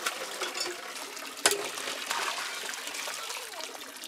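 Water poured from a pot splashing and trickling down over a bather, with one sharp knock about a second and a half in.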